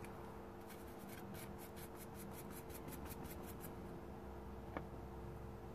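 Fibreglass cleaning pen scrubbing a circuit-board pad in runs of quick, faint scratching strokes, about six a second, with pauses between them. It is cleaning water-damage contamination off the pad so that solder will stick. A faint steady hum runs underneath, and there is one small click a little before the end.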